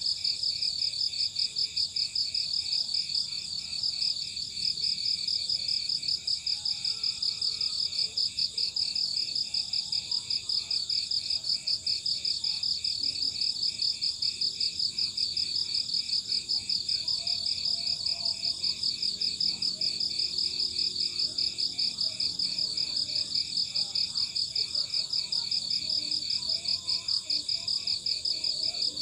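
Crickets chirping in a steady, evenly pulsed, high-pitched trill that never lets up.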